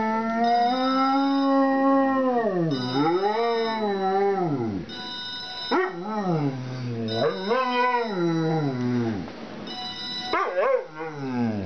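Dalmatian howling: a series of long howls that rise and fall in pitch, the first held steady for about two seconds before sliding down.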